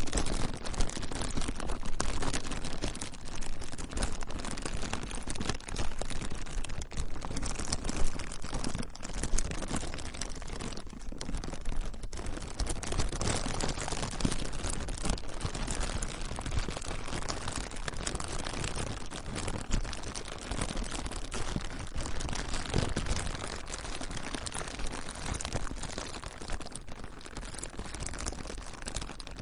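Plastic being crinkled and crumpled by hand: dense, irregular crackling that keeps going.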